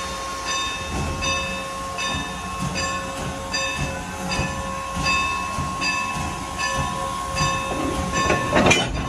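Norfolk & Western 475 steam locomotive with its bell ringing steadily, about one stroke every three quarters of a second, over a steady high hum and low rumbling from the engine. A short loud burst of noise comes near the end.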